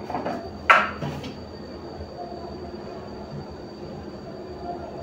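One sharp knock or clatter under a second in, then a steady low hum with a faint thin high whine.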